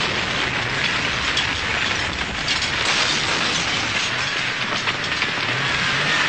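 Action-film explosion and debris sound effects: a steady, dense crackling rush of blasts and flying debris, with no single standout boom.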